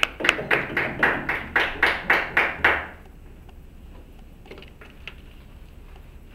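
A small group clapping in a steady, even rhythm, about four claps a second, welcoming the next speaker and stopping about three seconds in. A few faint ticks follow.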